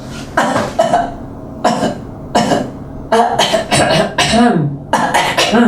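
A woman giving a run of short, small coughs and throat-clearing sounds, about eight in all with brief gaps between them: a nervous cough.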